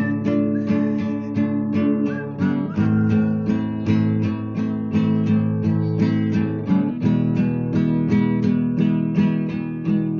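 Acoustic guitar strummed in a steady rhythm, about three to four strokes a second, changing chords every second or two; an instrumental passage with no singing.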